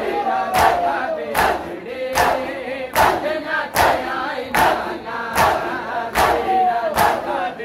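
A crowd of mourners beating their chests with their hands in unison (matam), a sharp slap a little more than once a second in a steady beat, over many voices chanting a noha.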